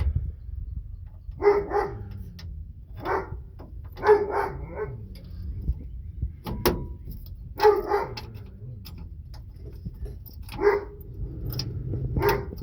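A dog barking repeatedly in short doubled barks every second or few, with a single sharp click about halfway through.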